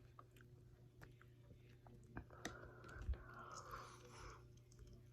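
A person quietly chewing a chicken wing with soft, wet mouth clicks.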